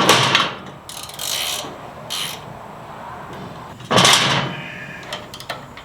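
Hand tools working on the motorcycle's exhaust mounting bolts and bracket: a few short metallic scrapes and clunks, the loudest about four seconds in, with small clicks after.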